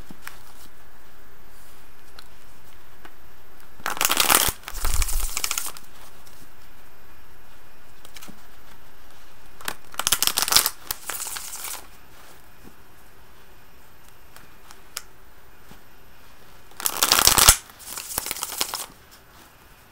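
A deck of tarot cards being shuffled by hand in three short bursts a few seconds apart, each about two seconds of rustling card noise.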